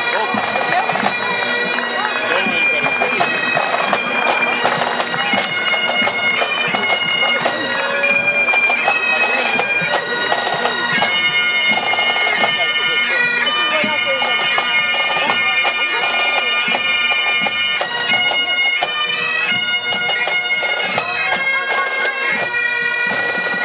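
A pipe band marching past, bagpipes and snare drums playing together: the pipes' steady drone under a changing melody, with quick drum strokes throughout.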